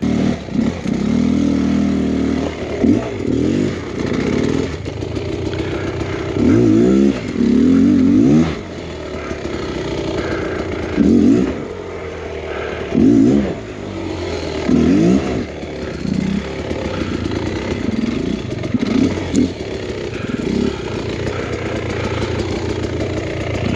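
Beta X-Trainer 300's single-cylinder two-stroke engine pulling at low revs, blipped in about a dozen short bursts of throttle as the bike crawls over rocks and logs. Now and then a knock or clatter of the bike against the rocks.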